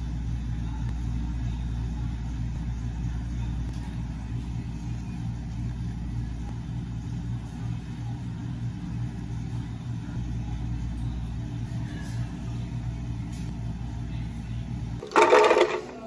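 Steady low machine hum with a rumble, typical of running cafe kitchen equipment, with a brief loud burst of noise about a second before the end.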